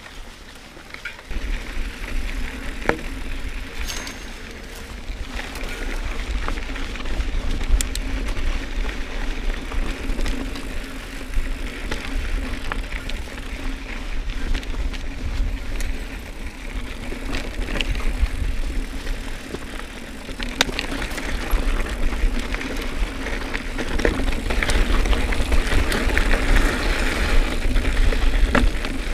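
Mountain bike riding on a dry dirt trail, picked up by a handlebar-mounted camera: wind rumble on the microphone and tyre noise on the dirt, with scattered clicks and rattles from the bike over bumps. It gets louder about a second in.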